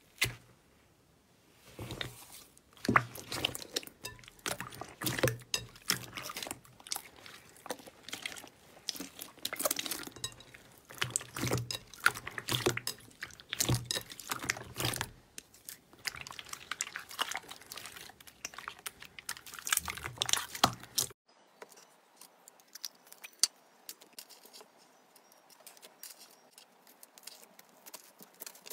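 Slime being squeezed and pressed by hand: a dense run of sticky pops, clicks and crackles. About two-thirds of the way through it changes abruptly to fainter, sparser crackling.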